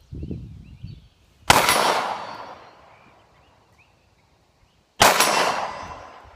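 Two 9mm pistol shots from a SIG P250 Compact, about three and a half seconds apart, each loud and sharp with a long ringing tail that fades over a second or more.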